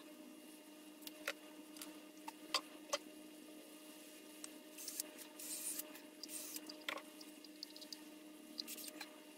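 Scattered clicks and knocks of handling, then short hissing bursts about halfway through as a cordless drill bores a pilot hole through the centre of a white PVC disc.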